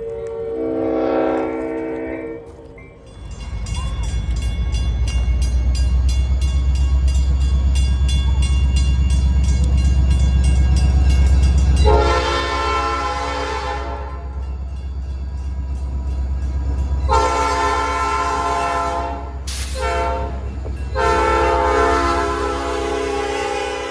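Locomotive horn sounding a short blast, then the locomotive's heavy low engine rumble as the train runs. The horn then sounds long, long, short, long, the standard signal for approaching a grade crossing.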